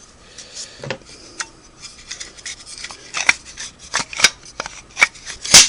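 Scattered light clicks and scraping as a Singer 401A sewing machine's metal parts are handled and moved, with a sharper click near the end.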